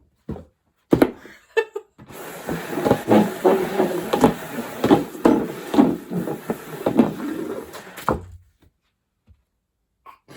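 A few sharp knocks and thuds, then about six seconds of dense rustling and clattering as things are handled on a table. It stops abruptly with a last thud.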